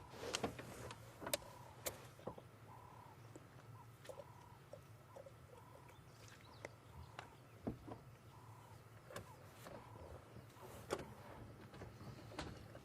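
Faint bush sounds: a bird repeating a short flat note over and over, scattered sharp snaps and clicks, and a low steady hum underneath.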